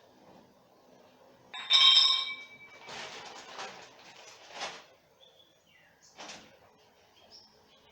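A metal part clanks once with a brief ringing tone, followed by several short scraping and rustling handling noises.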